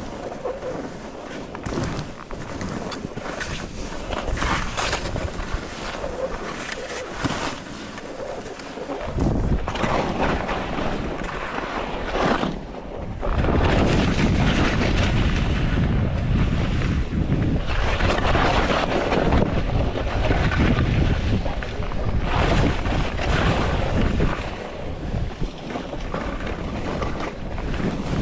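Skis scraping and carving on snow through a run of turns, with wind buffeting the action camera's microphone. The low wind rumble gets much heavier about nine seconds in and is loudest through the middle, easing again near the end.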